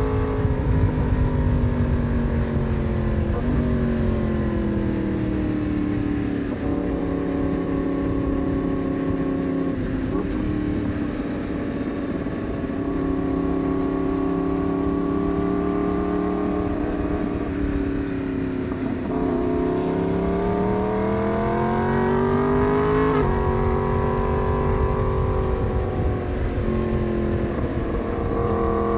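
Yamaha MT-10's crossplane inline-four engine running under way, heard from the rider's seat over wind rush. The revs hold and sway, climb for a few seconds about two-thirds of the way through, then drop sharply at a gear change.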